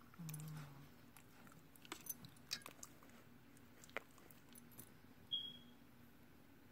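Shih Tzu puppy snoring softly: one short, low snore in the first second, then faint clicks and mouth smacks, and a brief high squeak about five seconds in.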